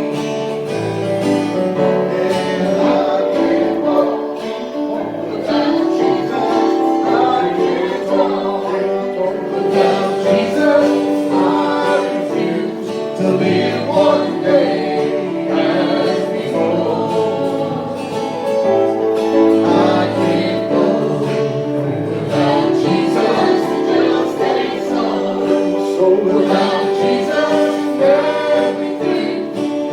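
Gospel song sung with acoustic guitar accompaniment.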